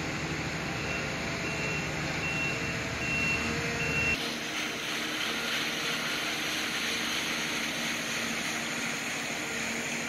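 A construction vehicle's reversing alarm beeping, about four beeps a little under a second apart, over a low engine rumble. Both stop suddenly about four seconds in, leaving a steady low hum of distant site machinery.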